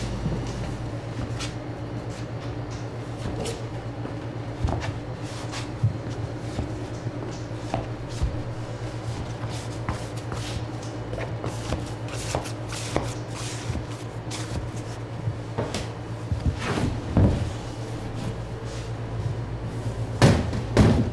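Plastic dough tub being handled on a steel worktable: scattered knocks and rustles, with louder knocks near the end as the dough is turned out and the tub lifted away. A steady low machine hum runs underneath.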